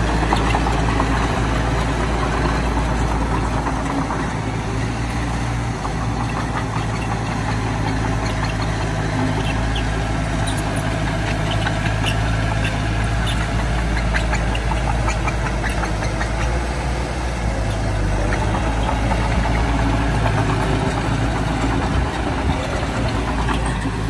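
Heavy diesel earthmoving machinery engine running steadily, with faint light clicks and clatter over the engine hum.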